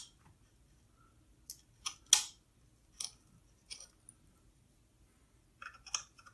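A small metal tool prying a chip out of its socket on a ZX81 circuit board: a series of short clicks and scrapes, the loudest about two seconds in, with a quick cluster near the end.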